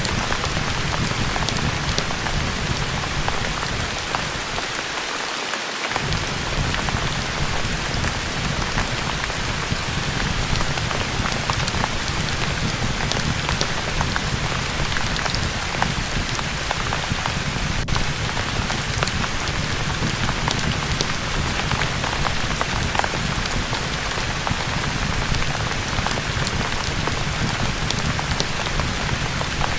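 Steady heavy rain falling, with a dense patter of drops over a low rumble. The low rumble drops out for a couple of seconds a few seconds in, then returns.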